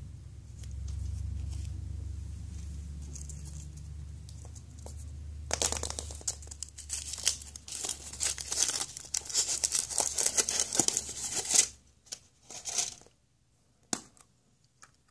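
Metallic foil wrapper crinkling and tearing as it is peeled off a surprise egg by hand, starting about five seconds in and lasting about six seconds, then a few short taps.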